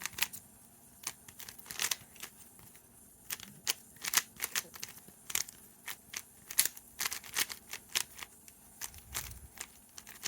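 Moyu Meilong 3C speed cube, its mechanism heavily greased with Vaseline, being turned quickly in a solve: a run of irregular sharp plastic clicks and clacks from the layers.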